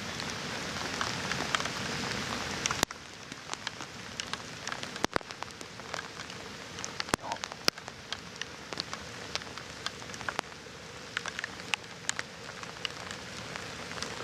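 Rain falling close to the microphone: a steady hiss with many sharp, irregular drop ticks. The hiss drops noticeably about three seconds in, while the ticks go on.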